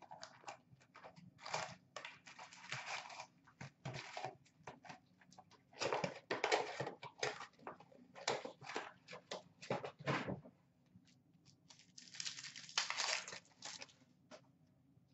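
Trading card packs and their cardboard box being handled: irregular crinkling and rustling of foil pack wrappers with light taps and clicks, in uneven bursts.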